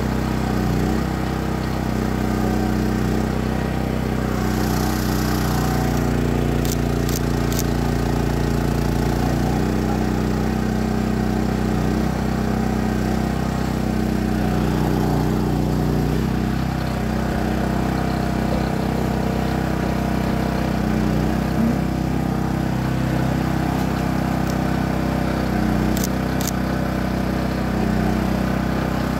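An engine running steadily at a low, even pitch that shifts slightly now and then, with a few light clicks.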